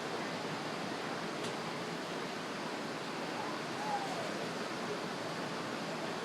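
Ocean surf washing steadily onto the beach, an even unbroken rush.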